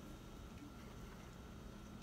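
Quiet chewing of a shrimp po' boy sandwich with the mouth closed, against a steady faint room hum.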